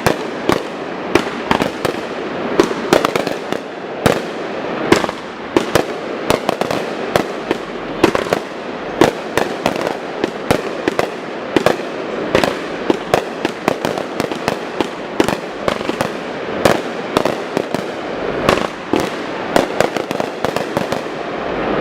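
Fireworks going off in a rapid, irregular barrage: sharp bangs several times a second over continuous crackling.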